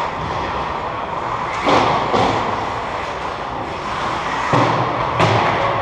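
Hockey play echoing in an indoor ice rink: a steady arena hiss broken by sharp knocks of sticks and puck, two about half a second apart near two seconds in and two more in the last second and a half.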